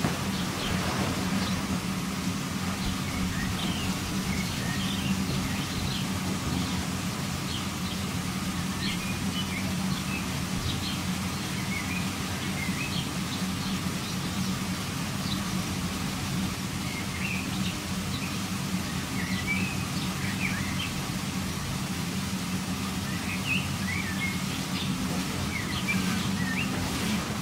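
Electric inflation blower of a bouncy castle running with a steady low hum, with birds chirping on and off over it.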